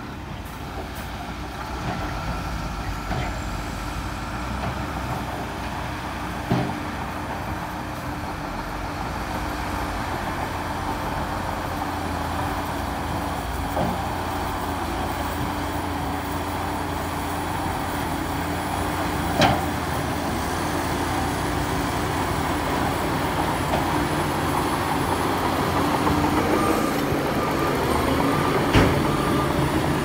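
Heavy diesel earthmoving machinery running steadily, growing gradually louder, with a few sharp knocks along the way.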